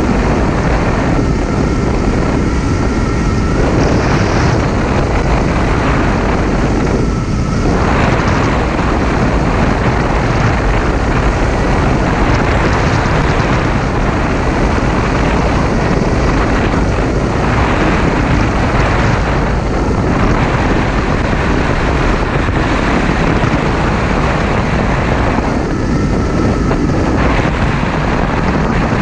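Steady wind rush buffeting the microphone of a 2015 Yamaha FJ-09 motorcycle ridden at a constant speed, with the bike's three-cylinder engine running underneath.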